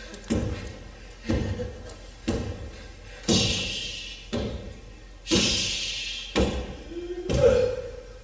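Heavy thuds at a steady beat, about one a second. Two of them are followed by a short hissing rush.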